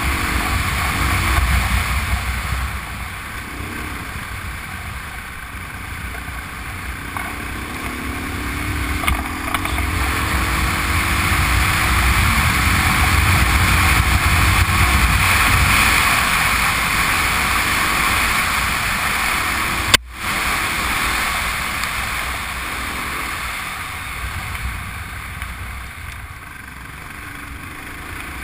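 Honda Transalp V-twin engine running under way on a gravel road, heard through a GoPro with heavy wind rush and gravel noise from the tyres; the engine pitch climbs for a few seconds as the bike speeds up. A single sharp click with a brief dropout about two-thirds of the way through.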